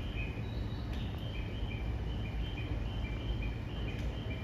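Station platform ambience: a steady low rumble, with a high chirping of short notes that alternate between two or three pitches, about three or four a second.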